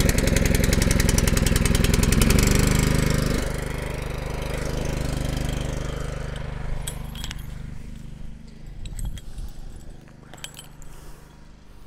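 Small gas engine of a portable fire-fighting water pump running steadily while the fire hose is laid out and not yet charged. It drops sharply in level about three and a half seconds in and runs on more quietly, with a few metallic clicks and clinks in the second half.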